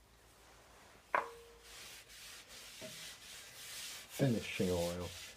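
A cloth rubbing finishing oil into a turned sweet chestnut bowl: an uneven rubbing noise, after a sharp knock about a second in. A brief voice sound near the end.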